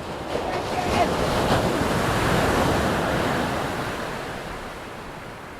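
Ocean surf: a wave breaking and washing in, its rush building over the first second or so, then slowly dying away.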